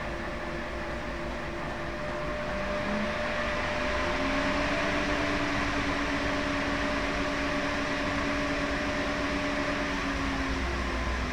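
Washing machine running: a steady motor hum and hiss with a held whine that shifts pitch a few times, rising in level about four seconds in and dropping away shortly before the end.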